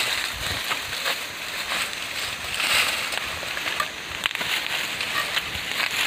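Rustling and crackling of dry leaf litter and undergrowth being disturbed, with scattered small snaps and ticks throughout.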